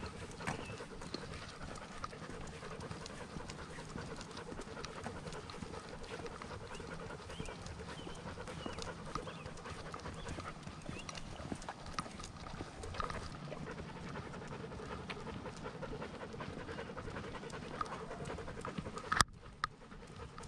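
A dog panting steadily, close to the microphone, with one sharp knock near the end.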